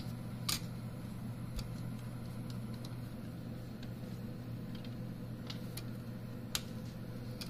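Scattered small clicks and taps of parts and tools being handled during disassembly, the sharpest about half a second in and another near the end, over a steady low hum.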